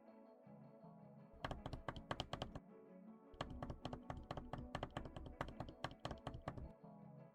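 Background music, with two stretches of rapid clicking or tapping in the middle: one about a second long, then, after a short gap, one of about three seconds.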